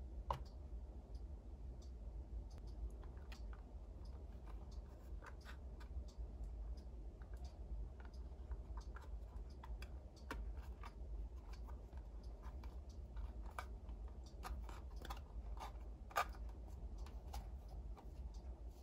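Miniature plastic toy pieces of a Hello Kitty Bakery Set handled by hand: scattered light clicks and taps, with a sharper knock just after the start and another near the end, over a low steady hum.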